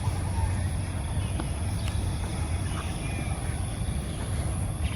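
Outdoor ambience: a steady, choppy low rumble, with a few faint short chirps.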